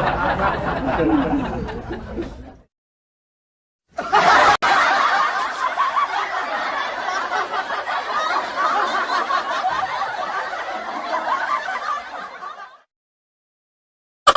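Two laughter sound effects one after the other: the first laugh fades out about two seconds in, then after a short gap of dead silence a second, longer laugh runs for about nine seconds and stops.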